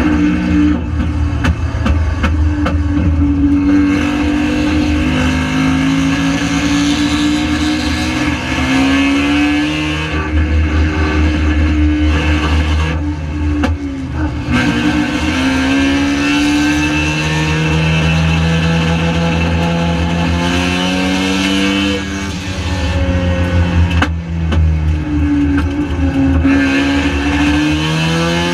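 Mazda RX-7 Spec RX7 race car's rotary engine running hard at speed, its pitch climbing through each gear and dropping sharply at the shifts, several times over, with a steady deep rumble underneath.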